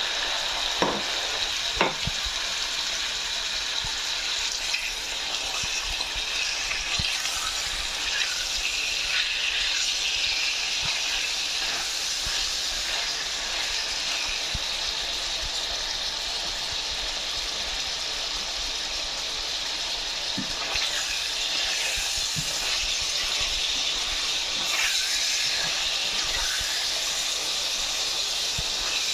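Cubes of raw beef frying in hot oil, a steady sizzling hiss, with a couple of sharp knocks about one and two seconds in and a spatula stirring the meat around the pan.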